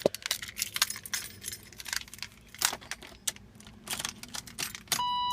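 Keys jangling and clicking, with irregular small metallic rattles. Near the end the car's electronic warning chime starts, a single steady ringing tone.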